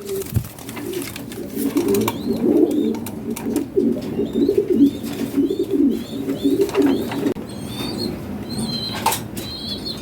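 Lahore pigeons cooing in low, warbling runs that fade after about seven seconds. From about two seconds in, a higher, short chirp repeats every half second or so.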